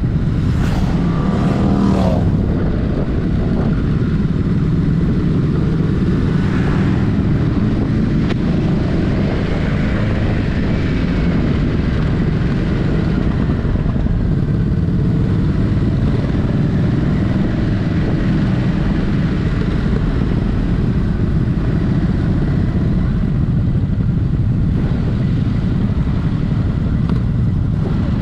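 Ducati Hypermotard 950's 937 cc L-twin engine running through its stock exhaust while riding. The pitch rises briefly about a second in, then the engine settles into a steady cruising note.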